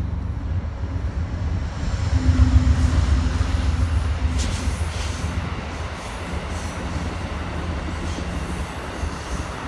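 Diesel locomotive approaching and passing below, its engine a low steady rumble that is loudest about two to four seconds in, with a few sharp clicks midway.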